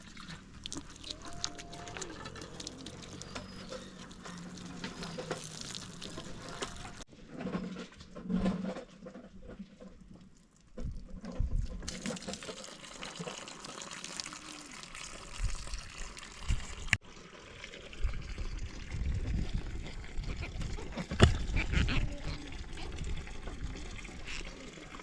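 Water pouring and trickling in several separate stretches, with a few handling knocks.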